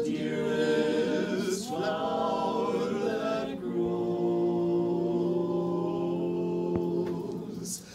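Barbershop quartet singing a cappella in close harmony, men's voices, with the choir teacher singing along. The chords change about a second and a half in and again about three and a half seconds in, and the last chord is held for about four seconds before it stops near the end.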